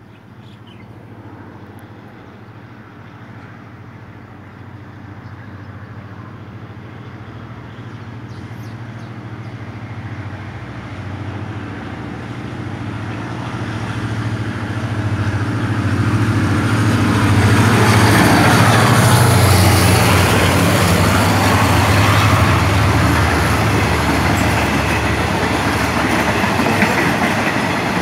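Hitachi diesel locomotive hauling a passenger train, approaching and passing. Its low engine drone grows steadily louder and is loudest about two-thirds of the way in as the locomotive goes by. It then gives way to the rushing rumble of the passenger coaches rolling past.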